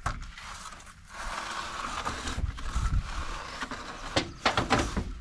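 A rough scraping noise lasting about three seconds, followed by a quick cluster of sharp knocks near the end.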